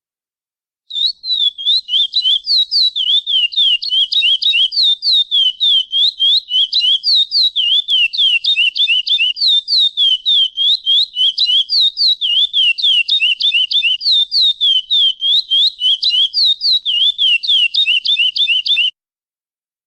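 Chestnut-bellied seed finch (curió) singing the 'praia clássico' song: a long, unbroken run of quick, clear whistled notes sliding up and down. It starts about a second in and cuts off abruptly near the end.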